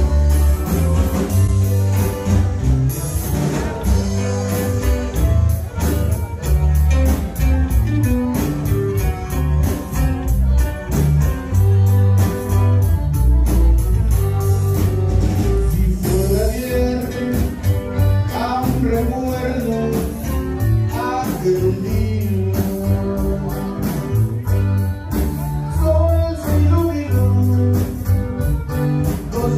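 Loud music with a steady beat and heavy bass, with a melodic line that slides up and down in the middle.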